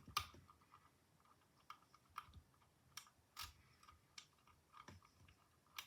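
Faint, scattered clicks and scrapes of a hook pick and tension wrench working the pins inside a Lockwood-style 570 oval pin-tumbler lock, about eight clicks spread irregularly over a few seconds.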